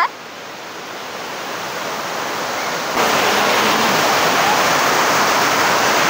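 Water rushing steadily down a tiered limestone waterfall, growing louder over the first few seconds and stepping up suddenly about halfway through.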